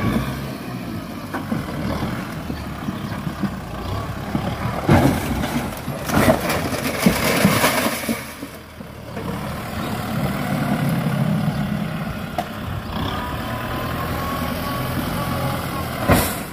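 Kubota M6040 tractor's diesel engine running as the tractor pushes over a concrete toilet structure. Crashing and scraping of breaking concrete and corrugated metal sheets come about five seconds in and again from about six to seven and a half seconds, with another sharp crash near the end.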